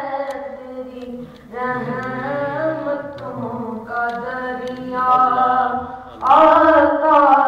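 Unaccompanied voice singing a naat, the Urdu devotional poem in praise of the Prophet, in long held, wavering phrases. The voice breaks off briefly about a second in and again near six seconds, and the last phrase is the loudest.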